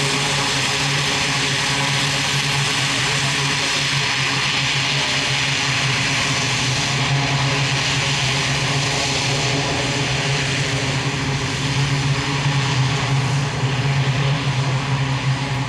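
E-2C Hawkeye's twin Allison T56 turboprops running in flight, a steady propeller drone with a strong low hum. It grows a little louder and more uneven over the last few seconds.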